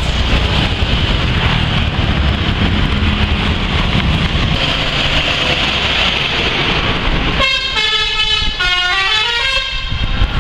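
Loud engine and road noise, then about seven seconds in a bus's multi-tone 'telolet' musical air horn plays a short tune. The notes step down and back up in pitch for about two and a half seconds.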